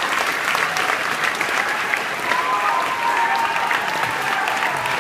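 Audience applauding steadily: many hands clapping at once in a dense, even wash.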